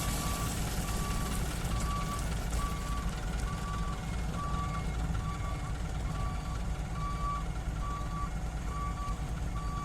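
A heavy machine's backup alarm beeping steadily, a single tone repeating a little faster than once a second, over a diesel engine running low and steady.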